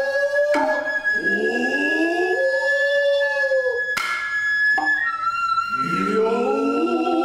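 Noh hayashi accompaniment. A nohkan bamboo flute holds a long high note and steps to a slightly lower note about five seconds in. Under it come the drummers' long, rising kakegoe calls and sharp tsuzumi hand-drum strokes, one just over half a second in and two more around four and five seconds.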